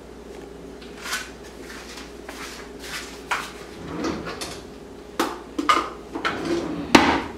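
Large kitchen knife drawn through a handheld pull-through knife sharpener: a series of short scraping strokes of the blade through the sharpening slots, closer together and louder in the second half.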